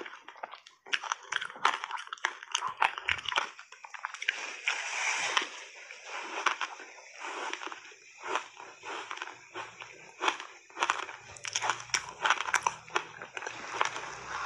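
Close-up crunching and chewing of a frozen passionfruit ice block coated in matcha powder, as a steady run of sharp, irregular crunches.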